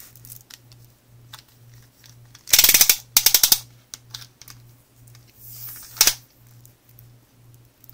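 Small retractable tape measure with a flexible sewing tape being pulled out of its plastic case: two quick runs of rapid clicking about two and a half seconds in, then one more short burst of clicks near six seconds.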